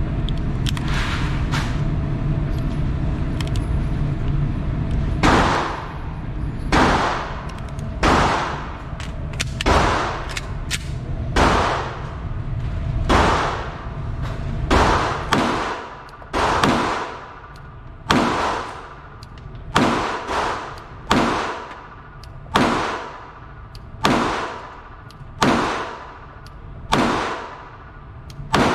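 A steady string of about eighteen gunshots, roughly one and a half seconds apart, each ringing out afterwards, starting about five seconds in over a low steady rumble.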